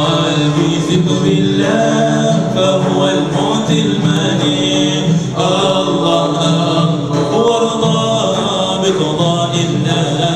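A male vocal group chanting and singing a qasidah together, unaccompanied, in a continuous melodic line, their voices amplified through microphones.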